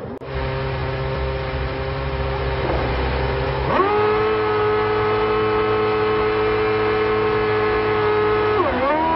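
Formula 1 car's 2.4-litre V8 held at steady revs on the starting grid. About 3.7 s in it revs up sharply and holds a high, even pitch. Near the end the pitch dips and climbs again as the car launches off the line.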